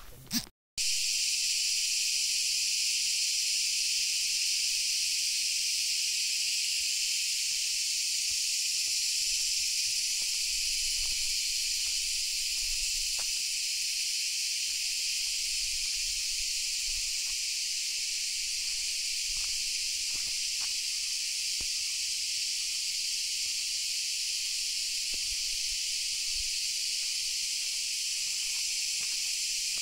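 A loud, steady chorus of insects in forest, an even high-pitched buzz that starts abruptly about a second in and holds without a break.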